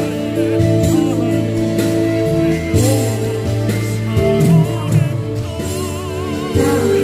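A tenor singing held notes with wide vibrato over a steady instrumental accompaniment.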